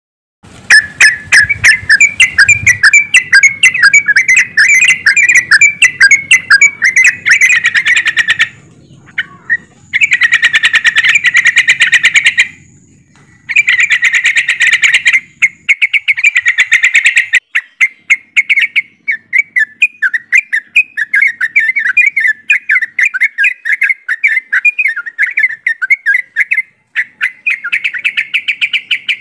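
Yellow-vented bulbuls (trucukan) singing, a group chorus of rapid, bubbly chirping notes. It runs loud and dense, with two brief pauses about a third of the way in.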